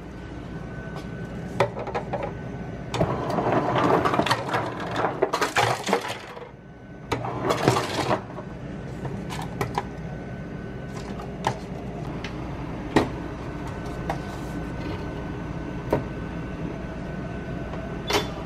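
Ice dispenser dropping ice cubes into a paper cup in two rattling rushes, about three and seven seconds in, followed by scattered single clicks, over a steady machine hum.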